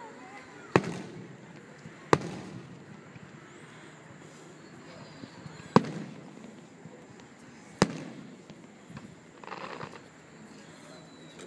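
Aerial fireworks shells bursting: four sharp bangs a second or more apart, each trailing off in an echo.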